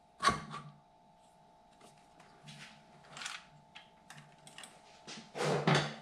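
Light metal clicks and knocks of a Honda CB550 cylinder head and its fittings being handled and worked down over the cylinder studs. There is a sharp knock at the start, scattered small clicks, and a louder clatter near the end.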